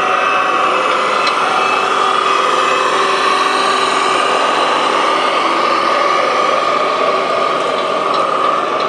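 Electric drive of a radio-controlled model truck running with a steady high whine that wavers slightly in pitch.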